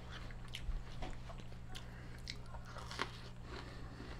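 Close-up crunching and chewing of crispy breaded bullhead meat: irregular crisp crackles as the coating is bitten through and chewed.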